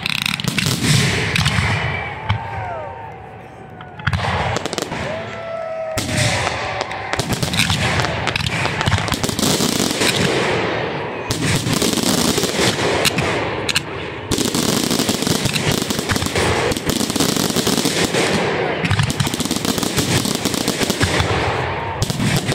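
Aerial fireworks barrage: many shells bursting in rapid, overlapping bangs with crackle between them. It eases briefly about three seconds in, then builds back into a dense, continuous volley.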